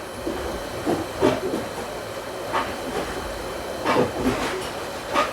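Hot air rework gun blowing a steady hiss of hot air onto a surface-mount chip to melt its solder, with a few brief clicks along the way.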